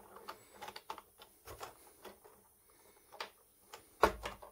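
Light clicking and ticking of a 3D-printed fractal vise's plastic jaw segments shifting as a wooden disc is nudged between them, with a louder knock about four seconds in.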